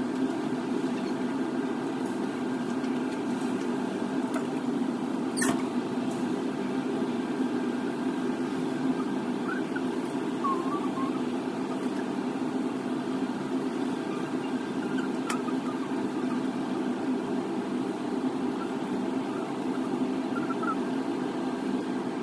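Steady low mechanical hum with a few steady tones in it, like a motor or fan running. There is one sharp click about five seconds in, and a few faint short chirps.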